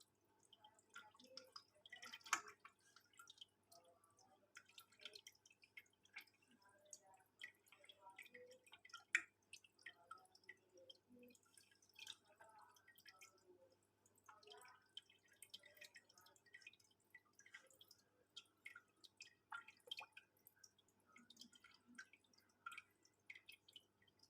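Faint, irregular small drips and splashes of water at a water surface, several a second, with two louder plops about two and nine seconds in.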